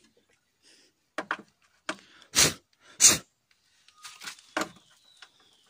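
Light clicks and knocks of hands and tools working at the engine while the spark plug is fitted, with two short loud scraping rasps near the middle.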